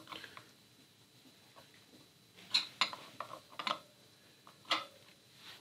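Metal hand tools and loose steel parts being handled: a handful of separate light metallic clinks, grouped in the second half after a quiet start.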